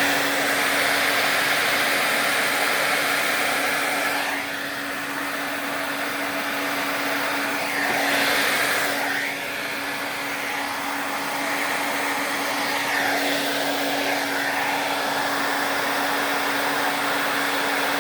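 Hair dryer running, blowing air over wet poured paint: a steady motor hum under a continuous rush of air. The airflow sound dips about four seconds in and swells again around eight seconds as the dryer is moved.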